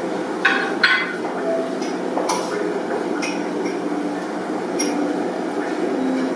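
Light clinks of chopsticks against small ceramic bowls, two sharper ones within the first second and a few lighter ones after, over a steady room murmur.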